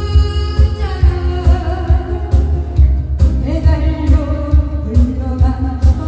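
A woman singing into a microphone to acoustic guitar, holding long notes over a steady low beat.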